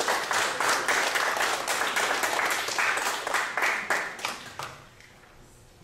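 Audience applauding, a dense clatter of many hands that dies away about four and a half seconds in.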